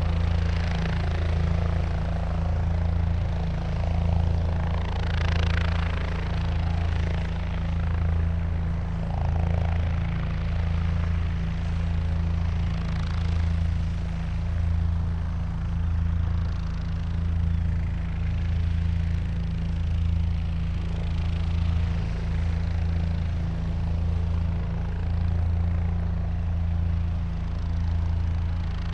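Helicopter running steadily, its rotor giving a low, even throb under turbine noise that swells and fades every couple of seconds.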